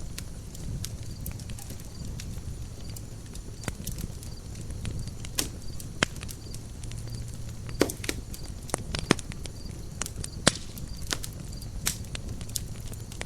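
Campfire burning, with a steady low rumble of flame under irregular sharp crackles and pops of burning wood. A few louder snaps stand out in the middle and later part.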